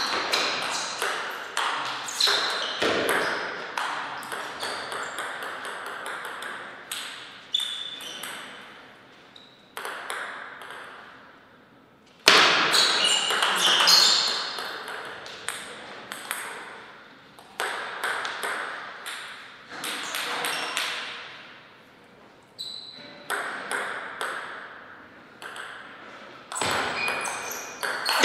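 Table tennis rallies: the ball clicking back and forth off the paddles and the table, each hit echoing in a large hall, with short lulls between points.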